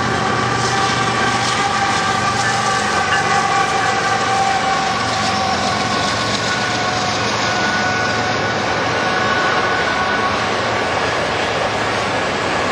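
Freight train of double-stacked intermodal container cars rolling past: a steady, loud noise of wheels and cars on the rails, with a few steady high-pitched tones over it that fade out in the second half.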